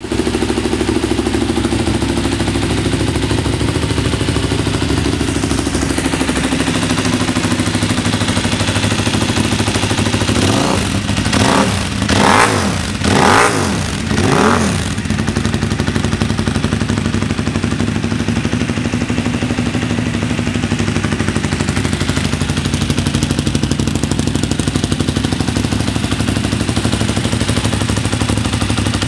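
KTM 990 Super Duke's V-twin engine idling through twin under-seat silencers, blipped four times in quick succession about halfway through, then settling back to idle.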